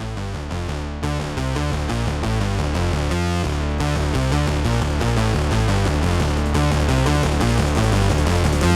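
Background music: electronic synthesizer track with a steady beat.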